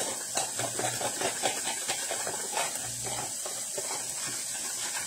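A spoon stirring a seasoning mix with water in a plastic prep bowl, a quick run of small scraping ticks, over the steady hiss of sausage and onions frying in a pan.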